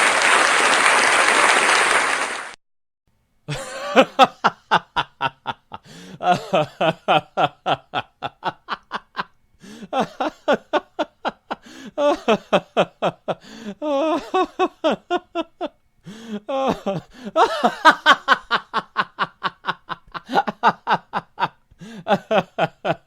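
Laughter in repeated bouts of quick, pitched 'ha-ha' pulses, about five a second, with short breaks between bouts. It begins after a dense, applause-like noise that cuts off suddenly a couple of seconds in.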